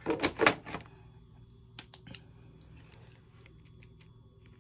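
A quick run of sharp clicks and clacks from handling colouring pens. Then faint scattered ticks and light scratching as a pen colours in a paper tracker.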